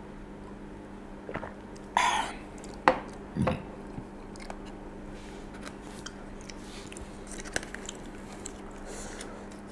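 Table sounds of someone drinking and eating: a short breathy noise and a few sharp knocks, like a glass being set down, about two to three seconds in, then soft small clicks and scrapes of a plastic spoon in a foil food tray.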